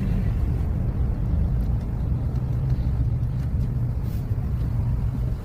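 Steady low rumble of a car's engine and tyres heard from inside the cabin while driving through snow.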